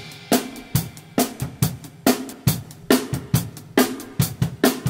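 Acoustic drum kit played on its own, with no backing track: bass drum, snare and hi-hat in a steady pop groove of evenly spaced strokes, about two a second.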